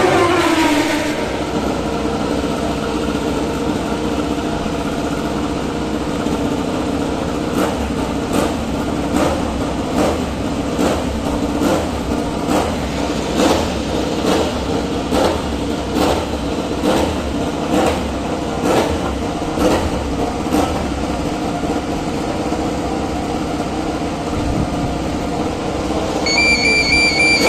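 A racing motorcycle passes on the main straight, its engine note falling as it goes by, and then a steady engine hum runs on. Through the middle there is a run of short sharp bangs, about two a second, and a high steady tone comes in near the end.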